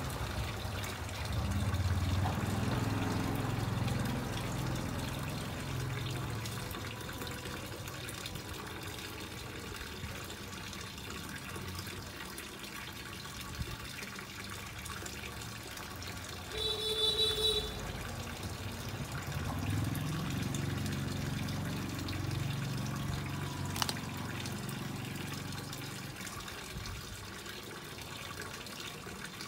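Stream of water falling from a pipe outlet into a cement-brick fish pond, splashing steadily into the pond water. A low drone swells and fades twice, and a brief beep sounds near the middle.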